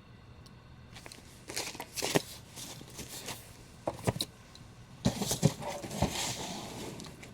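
Comic books being handled: scattered taps and clicks, then a longer rustle of paper and covers about five seconds in.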